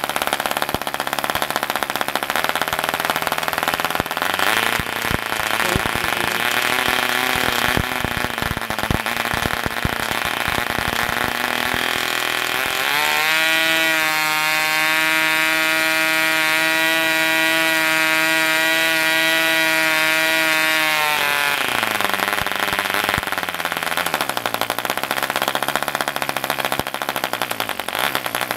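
Taipan Tyro 1.9 cc model diesel engine running at high speed while its compression screw is adjusted. It runs unevenly at first, then jumps about halfway through to a clean, steady high-pitched note. It drops back after about nine seconds and slows further near the end.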